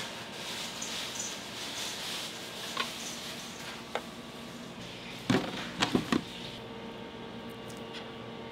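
Food-prep handling sounds on a plastic cutting board: a couple of light clicks, then a quick cluster of three or four knocks about five seconds in, from the knife and a plastic container being handled while salmon is sliced. A steady low hum runs underneath.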